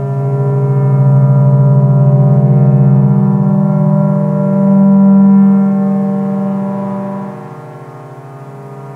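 Low synthesizer drone from a Maximal Drone Box run through Korg Kaoss Pad effects: a thick stack of steady tones sitting lowest around 130 Hz. It swells to its loudest about five seconds in, then thins and drops away near the end.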